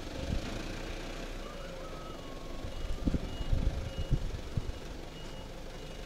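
Small flatbed truck's engine running with its reversing alarm sounding a steady series of faint short beeps; a few low thumps around the middle.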